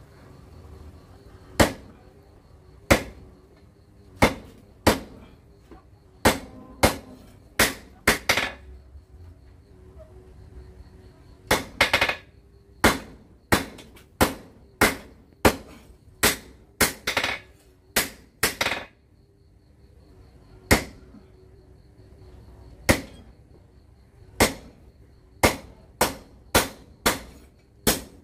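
Hand hammer striking a red-hot steel knife blade on a post anvil: sharp blows at about one to two a second in uneven runs, broken by pauses of a couple of seconds.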